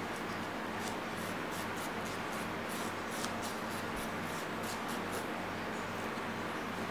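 Nail file rasping across a baby monkey's fingernails in short quick strokes, about three or four a second, over a steady low hum.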